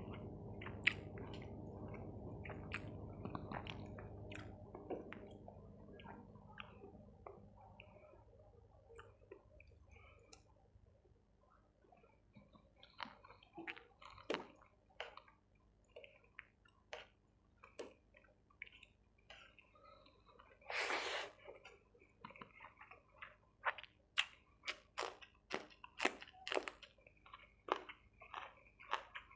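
Close-miked mouth sounds of someone eating chicken curry with rice: wet chewing with many sharp smacking clicks. A low hum fades away over the first several seconds, and about two-thirds of the way through there is one louder noisy burst lasting about a second.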